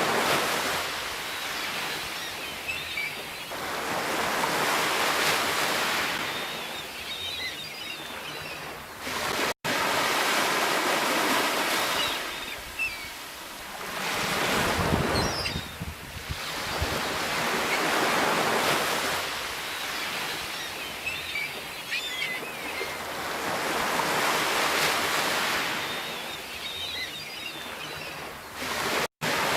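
Sea waves breaking and washing up the shore, the surf swelling and falling away every three to four seconds. The sound cuts out for an instant twice.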